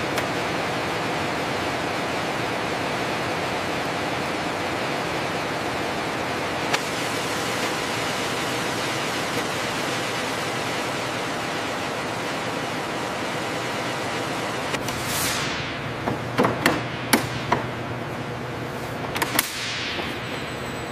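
Steady, even hiss of hangar background noise. Near the end come two falling whooshes about four seconds apart, with a quick run of sharp clicks and knocks between them.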